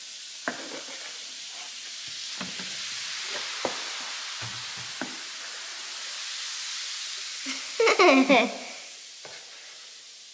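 Baking soda and vinegar fizzing with a steady hiss as a metal spoon stirs the foam on a plastic tray, with several sharp clicks of the spoon against the tray. Near the end a brief loud squeal cuts in.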